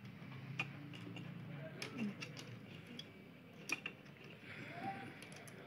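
Scattered small clicks and taps of plastic and metal as fingers work at the wiring inside an opened plastic extension strip, at its burnt wire by the indicator bulb.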